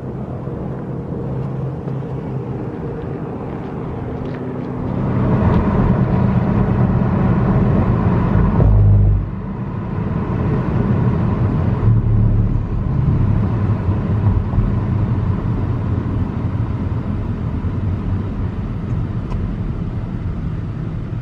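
Road and engine noise heard inside a car travelling at highway speed, a steady low rumble. It grows louder for about four seconds and then drops back suddenly.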